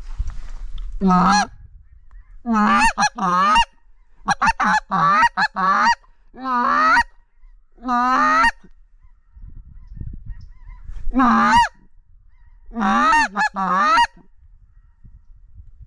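Snow geese honking in loud clusters of calls with quiet gaps between them: a single honk, then a run of several quick honks, two more single honks, and a last burst of honks.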